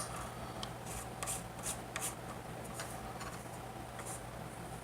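Faint rubbing and scattered small clicks of a cork grip being worked onto a fishing rod blank, with a sharp click at the start, over a steady low hum.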